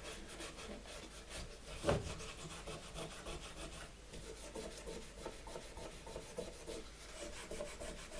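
Old Bakelite switch casings being rubbed clean with white spirit, in quick repeated scrubbing strokes, with a light knock about two seconds in.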